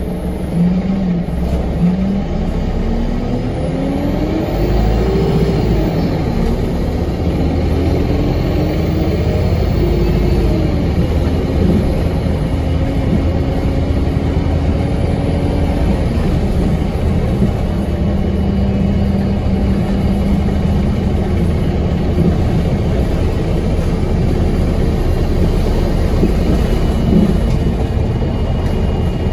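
Alexander Dennis Enviro 200MMC single-deck bus driving, heard from inside the passenger saloon: a constant low engine and road rumble. Over it an engine and transmission whine climbs and drops several times in the first ten seconds or so, as the bus accelerates through its gears, then holds steady as it cruises.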